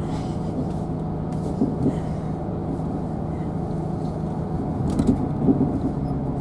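Inside a KiHa 187 diesel railcar on the move: a steady diesel engine drone and wheel-on-rail rumble, with a few short clicks about five seconds in.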